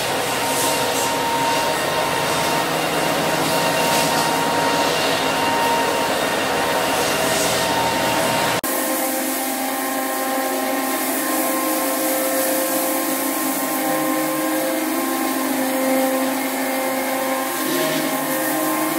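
Walk-behind drum floor sander running, sanding old parquet flooring. About 8½ seconds in it cuts to a smaller pole-handled rotary floor sander running steadily, with a steady whine.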